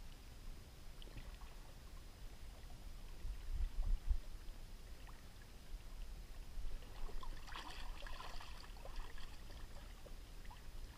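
Small waves lapping and trickling against a kayak's hull and outrigger float, over a low steady rumble of wind on the microphone. A short run of small clicks and rattles comes about two-thirds of the way through.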